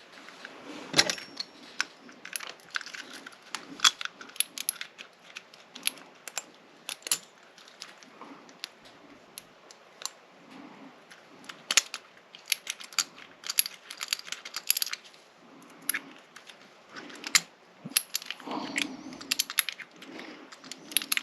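Small metal lock parts and tools being handled on a workbench: irregular sharp metallic clicks and light rattles, with a fuller clatter near the end.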